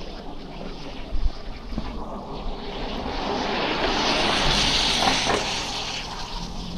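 A vehicle passing close by on a snowy street: its tyre hiss swells over a couple of seconds, is loudest about two-thirds of the way through, then fades, over a steady low rumble.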